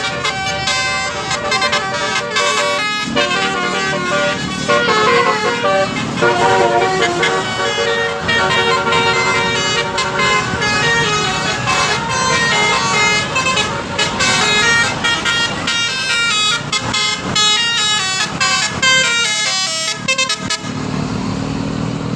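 Telolet bus horns playing quick melodies of several stepped tones, one after another, with a steady low engine sound underneath. The horn tunes stop near the end, leaving only the low hum.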